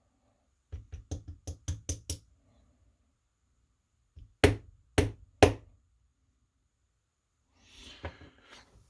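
Brass lock cylinder being knocked against a hard surface to shake loose a pin spring stuck in its chamber. First comes a quick run of about seven light knocks, then three harder knocks about half a second apart, with a little rustling near the end.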